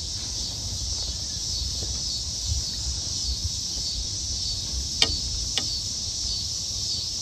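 A steady high-pitched chorus of insects shrilling, with two sharp clicks about five seconds in.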